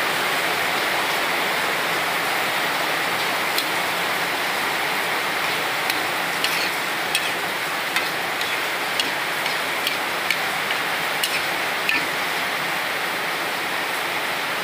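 Noodle soup boiling hard in a wok: a steady bubbling hiss with scattered sharp pops that come more often from about halfway through.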